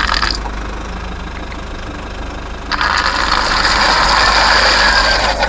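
Small stones sliding and rattling out of a toy dump truck's tipped bed in one rush. It starts about halfway through, lasts nearly three seconds and cuts off sharply, over a steady low hum.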